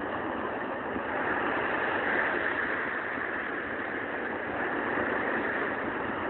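Sea surf breaking on the shore: a steady, rushing wash of waves that swells gently now and then.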